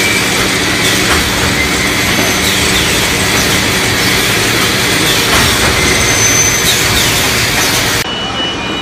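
Wire-processing machinery for a 3D panel welding line running steadily: a continuous mechanical din with a low hum and a few brief high squeals. The sound turns duller near the end.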